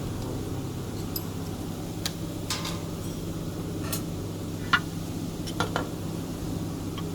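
Metal parts and tools clinking and knocking a few times while being handled during machine installation work, over a steady low hum.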